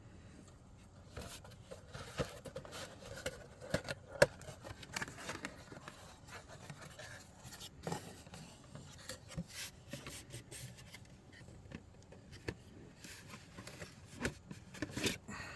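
Irregular rubbing and scraping with scattered sharp clicks and light knocks, the sound of objects being handled close by; the sharpest click comes about four seconds in.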